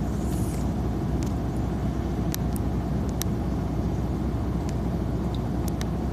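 Steady low rumble of a parked truck's diesel engine idling, heard from inside the cab, with a few light clicks here and there.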